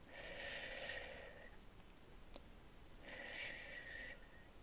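Two long, soft blows of breath close to the microphone, each about a second and a half, each carrying a faint steady whistle.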